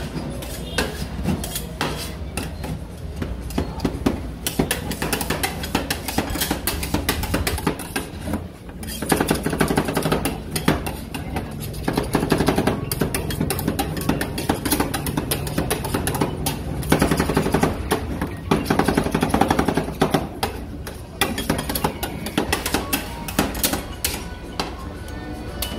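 Steel spatulas tapping and scraping on the steel cold plate of a rolled ice cream machine in quick, irregular strokes, with music and voices in the background.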